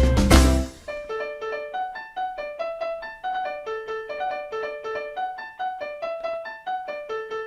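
Background music: a loud beat-driven track cuts off under a second in, then a soft piano melody of quick, evenly paced notes.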